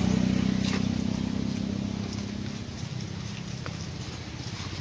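A motor engine running with a steady drone that fades away over the first three seconds, leaving a lower hum. There are a few faint clicks and rustles.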